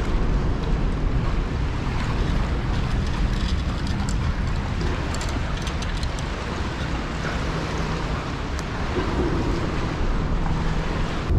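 Wind buffeting the microphone outdoors: a steady low rumble with a hiss over it.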